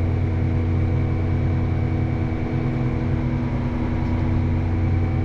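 Tractor engine running steadily with the planter's vacuum fans and hydraulic drives switched on, an even low drone with several steady hums.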